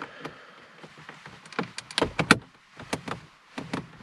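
Hard plastic dashboard trim beside a car's radio unit being pressed and handled, giving a run of sharp clicks and taps, thickest about two seconds in.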